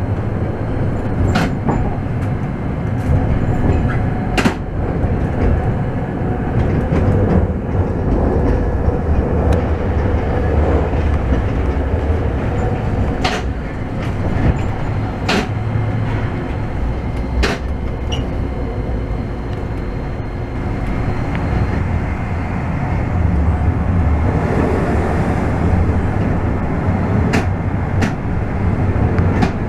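Toden Arakawa Line streetcar running, heard from inside the driver's cab: a steady low rumble of wheels and motors, broken by a sharp clack every few seconds.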